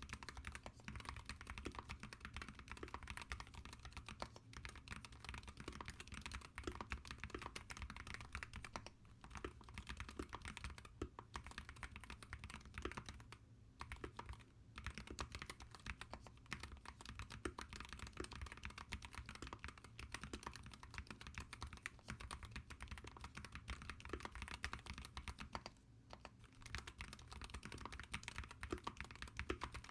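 Typing on a SteelSeries Apex Pro Gen 3 gaming keyboard with magnetic switches: a fast, continuous run of key clacks, broken by a few short pauses.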